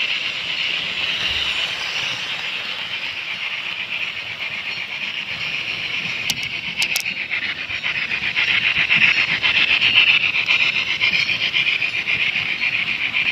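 Model railway locomotive's sound effects: a fast, rhythmic hiss that swells and fades, with a few brief high clicks about halfway through.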